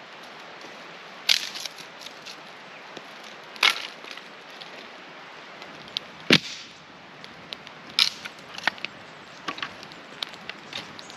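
Hatchet chopping firewood on a chopping block: four sharp strikes about two seconds apart, the loudest about six seconds in, with lighter knocks and clatter of wood between.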